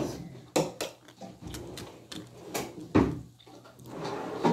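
A few short clicks and knocks of things being handled, with a louder thump about three seconds in.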